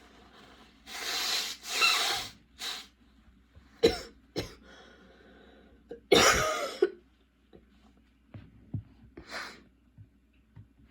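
A woman's coughing fit: a run of hard, dry-sounding coughs bunched in the first few seconds, a loud one about six seconds in and a last cough near nine seconds. It is a persistent cough that her current medication is not controlling.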